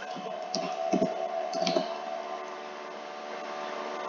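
A few keystrokes on a computer keyboard in the first two seconds, typing a search term, over a steady background hum.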